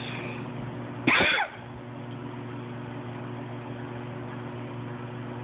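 Steady low machinery hum of several fixed pitches. About a second in, a loud short squeal falls in pitch and lasts under half a second.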